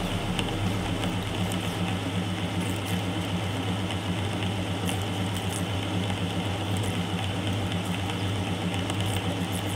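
Myford lathe driven by a single-phase electric motor, turning a cut on a bar held in the chuck: a steady hum with a low drone, and faint scattered ticks.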